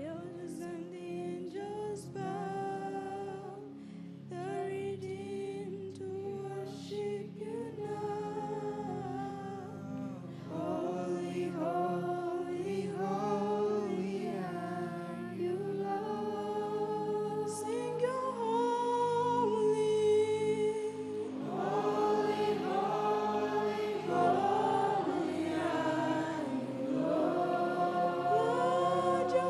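Worship singing: voices singing a slow song with long held notes over a steady instrumental backing, growing louder.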